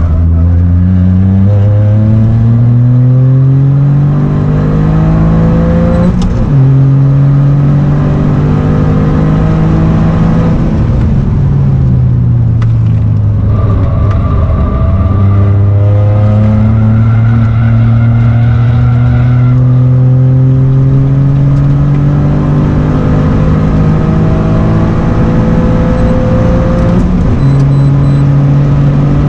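GR Yaris's turbocharged 1.6-litre three-cylinder engine at hard throttle, heard inside the cabin, its pitch climbing through the gears with sudden drops at upshifts about six seconds in and near the end. Around ten seconds in the pitch sinks for a couple of seconds as the car lifts off, then it pulls up through the revs again.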